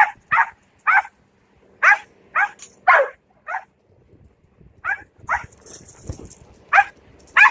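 A dog barking: about a dozen short, high-pitched barks in irregular runs, with brief pauses between the runs.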